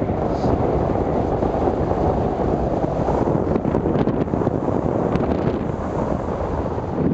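Wind rushing over the microphone of a hang glider in flight: a steady, loud, low buffeting.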